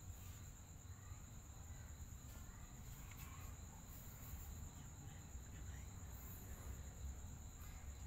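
Quiet background: a steady high-pitched drone over a low rumble, with a few faint short sounds.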